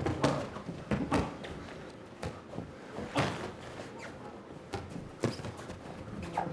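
Irregular sharp slaps and thuds of a boxing bout: gloved punches landing and boxers' shoes striking the ring canvas.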